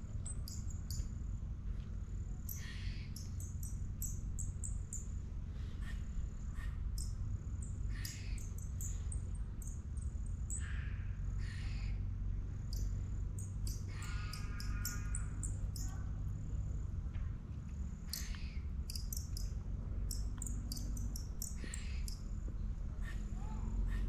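Scattered short, high bird-like chirps and squeaks, with one longer pitched call a little past the middle, over a steady low rumble.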